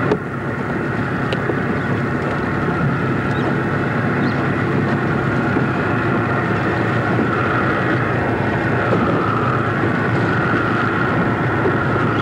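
Outboard motor running steadily under way, mixed with wind noise on the microphone.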